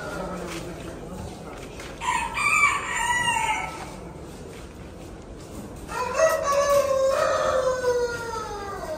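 Roosters crowing in turn: the end of one crow at the start, a short crow about two seconds in, and a long crow falling in pitch from about six seconds in.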